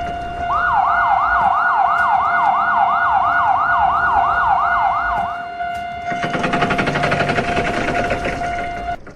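A cartoon siren sound effect yelping rapidly up and down, about three sweeps a second, over a steady electronic tone for about five seconds. A busy jumble of electronic tones then comes back and cuts off suddenly at the end.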